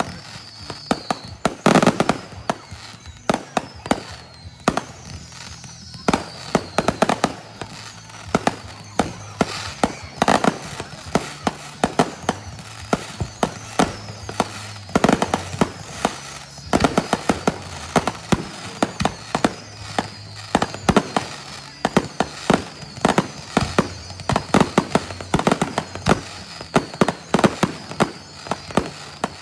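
Fireworks going off: many sharp bangs and crackles in quick, irregular succession, with a thin high whistle that falls in pitch recurring several times.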